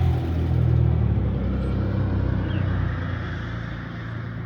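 A motor vehicle engine running with a steady low hum that slowly grows quieter over the second half. A bird chirps faintly once about two and a half seconds in.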